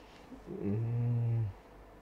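A man's closed-mouth "hmm" hum, held at one low, steady pitch for about a second, while he ponders a question.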